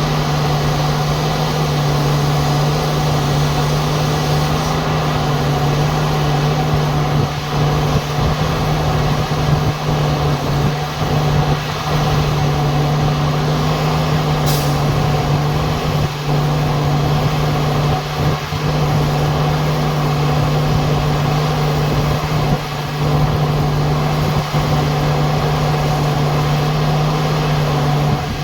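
Greaves CPCB-2 diesel generator engine of a 2014-built end-on-generation power car running steadily with a strong low hum, a sound the uploader calls faulty. A brief high tick cuts through about halfway.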